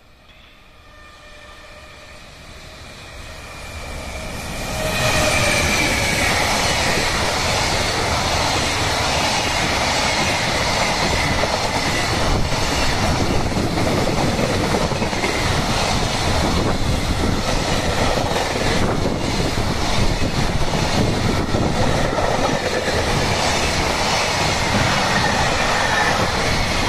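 JR Freight electric locomotive and container train going by: a steady whine grows louder as it approaches, then from about five seconds in the long string of container flat cars rumbles past with wheels clicking over the rail joints.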